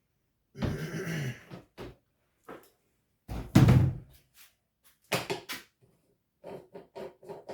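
Knocks and clunks of a fuel can and a portable generator's fuel cap being handled during refuelling, the loudest a heavy clunk about three and a half seconds in, followed by a run of lighter clicks near the end.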